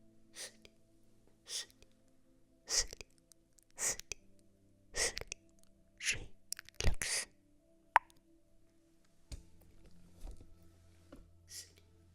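Soft, crisp ASMR trigger sounds, short hissing strokes about once a second, with one sharp click about eight seconds in.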